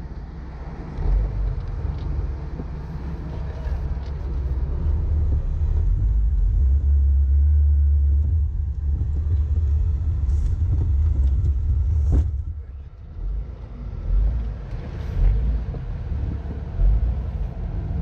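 Engine and drivetrain of a 4x4 driving slowly along a rutted dirt trail, a steady low rumble that swells in the middle, with one sharp knock about twelve seconds in.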